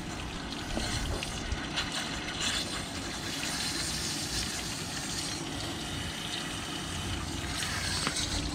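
Water running steadily out of a car engine's block as the cooling system is flushed through, the flush water now coming out clear.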